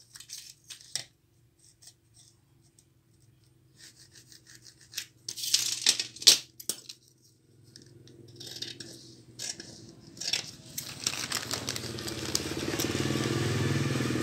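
Electric sewing machine running, a steady motor hum that grows louder over the last few seconds, after some small clicks and brief scraping rustles.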